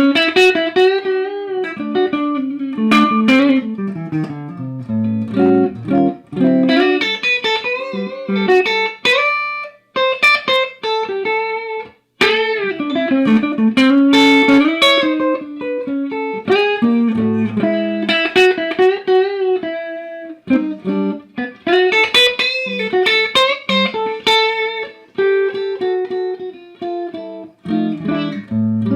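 Electric guitar played clean through a 1967 Fender Pro Reverb 2x12 combo amp: single-note lines, runs and chords in quick succession, with a couple of brief pauses about a third of the way in. Near the end a chord is struck and left ringing.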